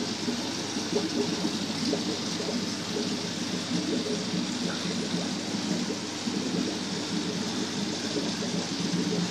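Steady bubbling and trickling of water from aquarium aeration and sponge filters, a constant rushing noise without pauses.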